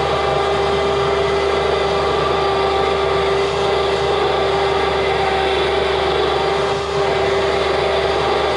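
Roll-off observatory roof closing under its automated drive, the motor running with a steady, unchanging hum.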